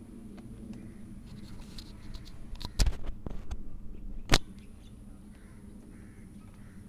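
Clicks and knocks of a hand handling the model plane's onboard camera, with a sharp loud knock about three seconds in and another a second and a half later, over a steady low hum.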